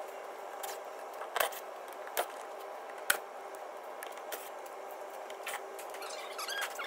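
Sharp clicks and light knocks, with a run of quick small ticks near the end, as Torx screws are taken out of a car's plastic engine undertray with a cordless ratchet, over a faint steady hum.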